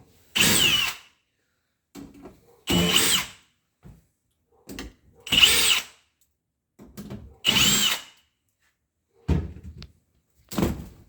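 Power drill/driver running in four short bursts of under a second each, about every two and a half seconds, its motor whine rising and falling with each burst, with small handling clicks and knocks in between.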